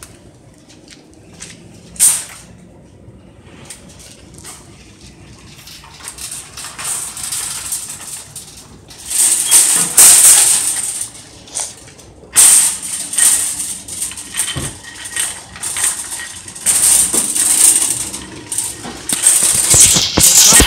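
Wire shopping cart rattling and jingling as it is pushed over a hard store floor. Quiet at first with one sharp knock about two seconds in, then loud, irregular clattering from about nine seconds on.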